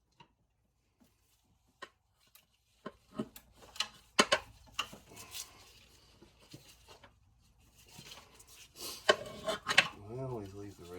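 Irregular clicks, knocks and rubbing of hard objects being handled, thickening into a clatter about three seconds in. A voice begins just at the end.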